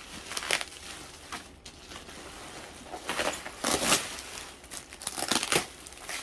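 Plastic wrapping crinkling and rustling as it is pulled off a vacuum cleaner, in several irregular bursts, the loudest a little past halfway.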